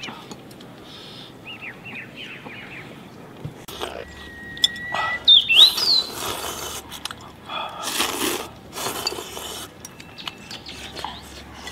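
Small birds chirping in short quick runs of descending notes, then several loud slurps as two people eat hot noodle soup from bowls.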